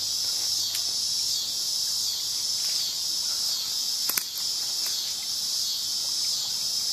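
High-pitched insect chorus that runs steadily and pulses in an even rhythm, with one sharp click about four seconds in.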